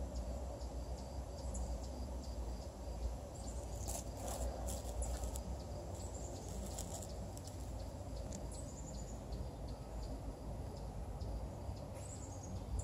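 Outdoor background: a steady low rumble with scattered high-pitched bird chirps, a cluster about four to seven seconds in and short falling runs of chirps later on.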